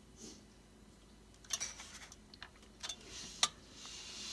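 Scattered small clicks and a light scraping as the stock AMD cooler's retention clip is worked against the plastic AM4 socket bracket, trying to catch its hook.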